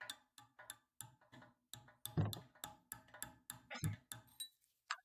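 Light, quick hammer taps on a punch driving a worn bushing out of a car door hinge held in a vise, about four taps a second with a few harder blows, stopping once the bushing comes free.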